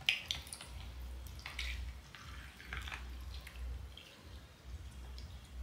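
Iced tea poured from a carafe into a glass mug packed with ice cubes: liquid trickling, with scattered clicks and clinks of ice, a sharper clink just at the start.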